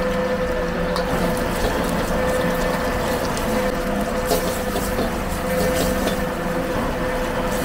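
Stir-frying in a carbon-steel wok over a gas burner: steady burner noise and hot oil sizzling under a steady hum, with the steel ladle repeatedly scraping and knocking against the wok as egg and rice are tossed.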